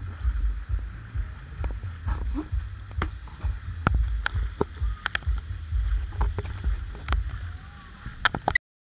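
Outdoor ambience: a low, uneven rumble like wind on the microphone, with scattered clicks and knocks and faint distant voices, cutting off suddenly near the end.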